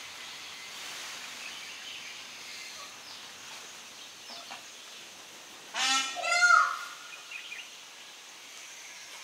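A peafowl gives one loud, harsh two-part call about six seconds in, over a steady outdoor hiss.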